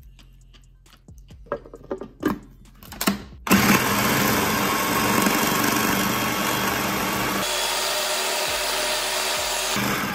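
A few short knocks, then an electric food processor runs for about six seconds, its blade churning ice and a thick strawberry ice-cream mix. The sound shifts about two-thirds of the way through and cuts off just at the end.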